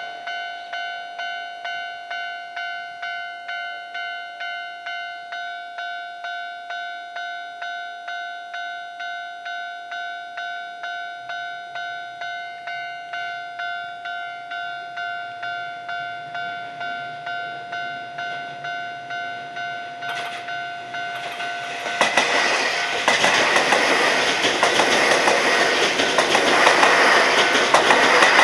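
Japanese level-crossing warning bell ringing in an even, repeating pattern of about one and a half strokes a second. About 22 seconds in, an electric train on the Keio Inokashira Line rumbles over the crossing with wheel clatter, louder than the bell and covering it.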